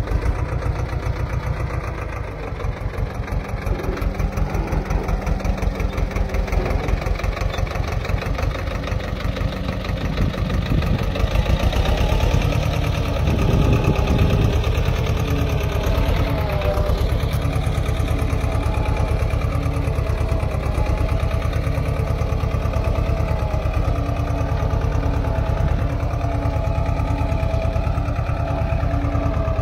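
Swaraj mini tractor's diesel engine running steadily under load as it pulls a single-bottom mouldboard plough through the soil, a little louder for a few seconds about halfway through.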